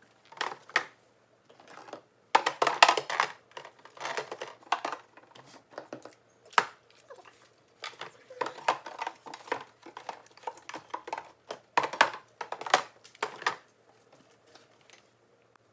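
Food containers and packaging being handled while a refrigerator is cleared out: irregular knocks and clatter with plastic crinkling, in short bursts with brief pauses.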